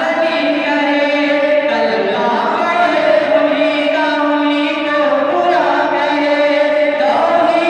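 Male voices singing a naat into microphones, unaccompanied, in long held notes that glide from one pitch to the next.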